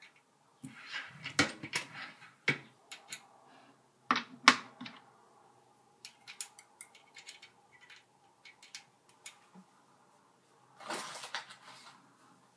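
Small metallic clicks and clinks of loose bullets and brass cartridge cases being handled by hand, as a bullet is picked out and set on a case mouth. Two louder clusters of clicks come about half a second and about four seconds in, light scattered ticks follow, and a short rustling rattle comes near the end.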